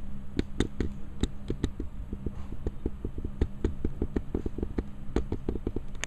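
Recorded log-fire crackling from a virtual fireplace video, played through a TV's speakers: irregular pops and snaps over a steady low hum.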